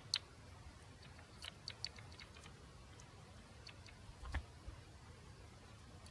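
Faint scattered clicks and light knocks from a CenterPoint Sniper 370 crossbow being cocked with a rope cocking aid. A cluster of clicks comes about a second and a half in, and the loudest click, with a low thump, comes just past four seconds.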